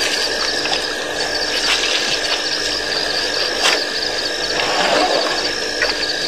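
Night insect chorus: a high, trilling call repeated in phrases of about a second with short gaps, over a steady lower hum of more insects. A few clicks and knocks sound through it, the sharpest a little over halfway through.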